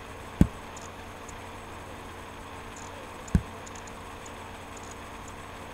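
Light clicking at a computer, with two low knocks about three seconds apart and faint small ticks between them.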